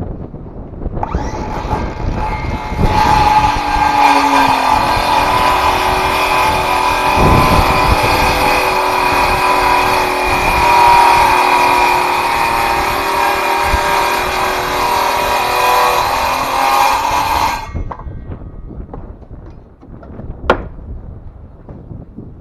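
Ridgid circular saw running and cutting through a wooden board: a loud, steady machine whine that starts about a second in, gets louder a couple of seconds later and stops abruptly after about sixteen seconds. A single sharp click follows near the end.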